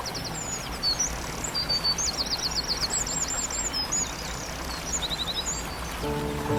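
Songbirds singing high, fast chirps and trills, several quick repeated notes in a row, over a steady rushing background.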